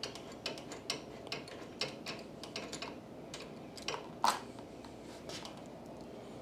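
Light metallic ticking, about two ticks a second, from a 10 mm socket and extension turning a small engine's oil drain plug out by hand, with one louder clink about four seconds in as the plug comes loose and oil begins to run out.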